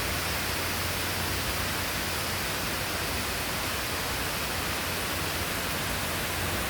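Heavy rain and wind of a summer thunderstorm, an even, steady rushing hiss.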